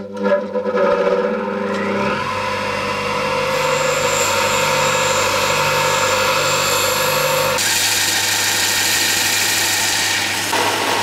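Bench grinder motor running with a steady hum while a hardened steel knife blade, made from an old file, is ground against the wheel with a hiss. About seven and a half seconds in, the sound changes abruptly to a belt grinder grinding the blade.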